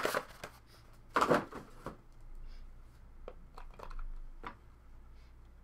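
Clear hard-plastic card case being handled: a few sharp plastic clicks and knocks, the loudest at the start and about a second in, with smaller taps later.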